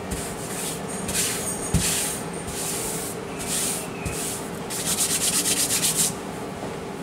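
A bare hand rubbing and wiping loose flour across a hard, smooth countertop: a series of dry swishing strokes, then a quick run of short back-and-forth scrubbing strokes about five seconds in.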